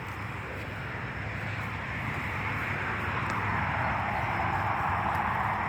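A motor vehicle passing on a nearby road, its tyre and engine noise swelling steadily as it approaches, loudest near the end.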